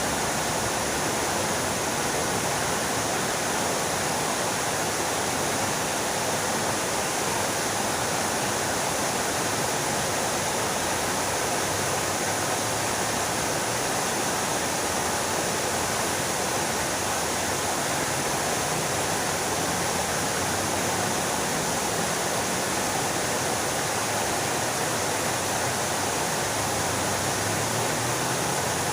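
Fountain water splashing and falling into its basin in a steady, unbroken rush.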